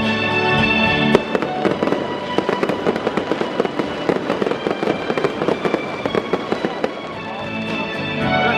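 Victory fireworks going off in a rapid string of pops and bangs, with stadium music playing underneath; the music swells again near the end as the cracks thin out.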